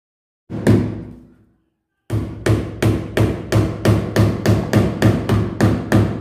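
A hammer nailing into the wooden ceiling framing overhead: a single knock about half a second in, then a steady run of about a dozen blows, roughly three a second, each ringing deep in the wood.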